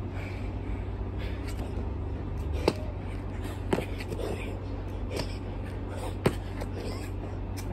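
Hands and sneakers slapping down on an asphalt court during burpees: a few sharp smacks about a second or more apart, over a steady low background hum.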